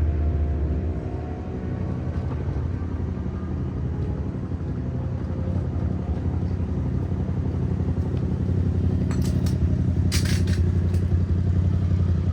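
Steady low mechanical hum of a motor or engine running, with a few short clicks and a brief hiss about nine to ten seconds in.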